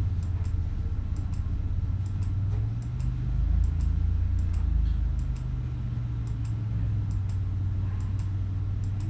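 Light computer clicks, often in quick pairs and repeated every half second or so, over a steady low hum.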